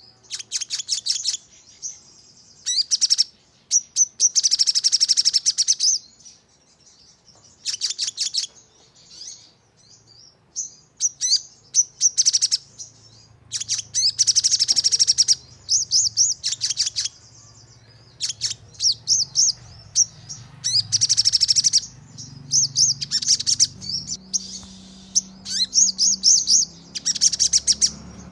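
Sogon bird song: bursts of rapid, sharp, high-pitched repeated notes in fast trills, each lasting a second or two, coming one after another with short pauses.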